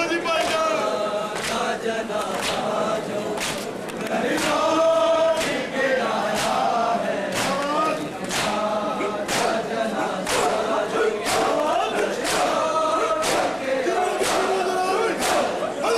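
A large crowd of mourners chanting a noha in chorus while beating their chests with their palms in unison. The massed slaps land together about once a second, keeping time under the chant.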